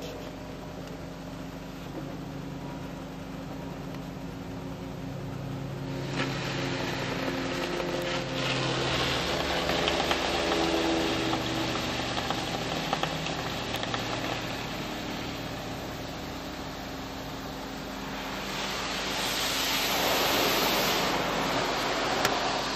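Automatic car wash heard from inside the car: water jets and foam spraying against the windshield and body as a hiss over a low machinery hum. The spray starts about six seconds in and swells loudest near the end.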